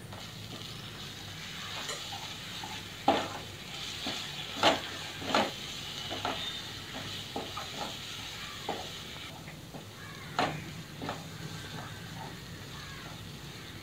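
Wooden spatula stirring and scraping onion-tomato masala and spice powders around a nonstick kadai, with irregular sharp knocks against the pan over a steady sizzle as the spices are sautéed in the oil.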